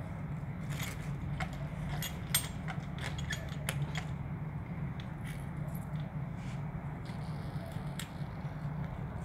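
Light clicks and clinks of a hand handling a garden hose where it is tied onto a PVC wall tap, thick in the first four seconds, then sparser, over a steady low hum.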